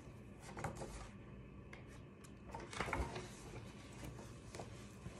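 Faint handling noises of a book and a page clip that keeps falling out: a few light clicks and paper rustles, the loudest about three seconds in.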